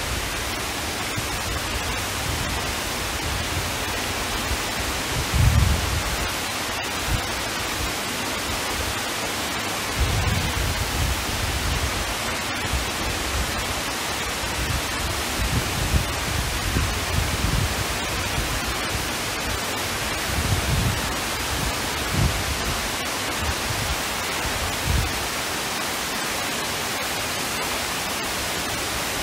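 Steady rushing noise of the Cloud Forest's large indoor waterfall, with occasional low thumps on the microphone.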